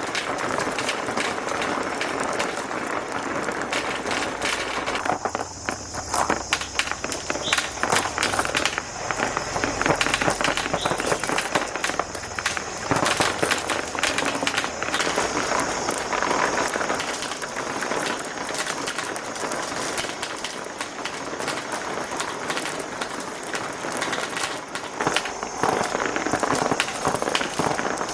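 Many marbles rolling and clattering down plastic marble-run tracks: a dense, continuous rattle of small clicks and knocks.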